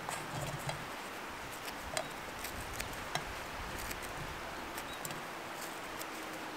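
Stale crusty bread being torn apart by hand, the dry crust giving small irregular crackles and snaps, with pieces dropped into a metal frying pan, over a steady outdoor hiss.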